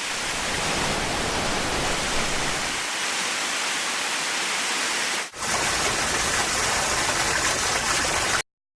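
Waterfall rushing, a dense steady roar of falling water that dips for an instant about five seconds in, then cuts off abruptly just before the end.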